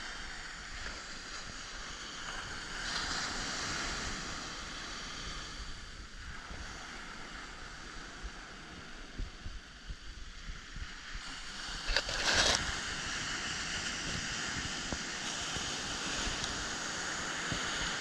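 Ocean surf breaking and washing up a sandy beach in a steady rush that swells and eases, with wind buffeting the microphone; a short, louder rush about twelve seconds in.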